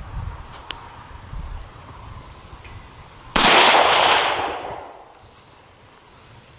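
A single rifle shot from a Del-Ton AR-15, about three and a half seconds in, with a long tail that dies away over about a second and a half.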